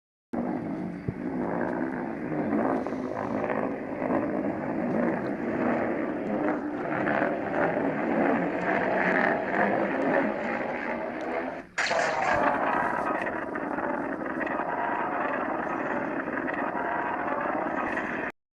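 A continuous, noisy sound effect that starts and stops abruptly, with a brief dropout about twelve seconds in where a second segment begins.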